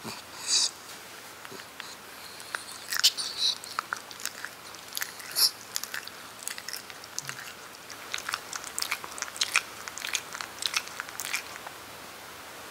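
A Japanese Spitz's mouth making small wet clicks and smacks, like licking or chewing, irregular and close by, from a few seconds in until near the end.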